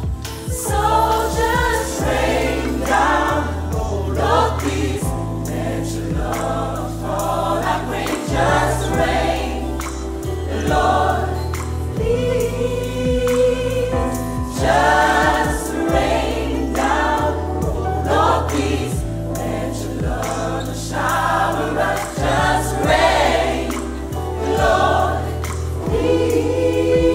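Gospel choir singing in harmony over a band, with a bass line and drums keeping a steady beat.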